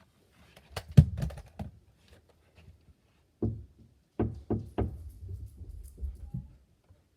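Knocking on a door: a quick run of knocks about a second in, a single knock, then three evenly spaced knocks.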